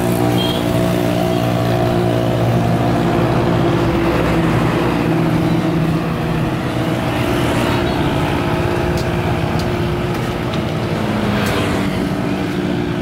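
An engine running steadily at a constant speed, a continuous hum with a slight shift in pitch about six seconds in.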